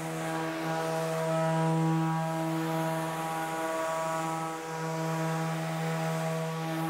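Random orbital sander with 100-grit paper sanding the epoxy coat on a wooden kayak hull, together with the dust-extraction vacuum running through its hose: a steady motor hum with a strong low tone.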